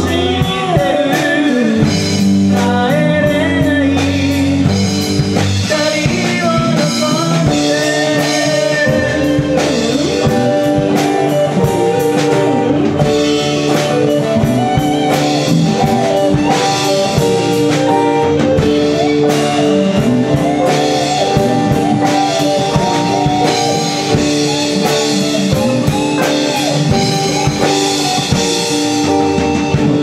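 Live band playing in a small bar: electric and acoustic guitars over a drum kit, at a steady full level.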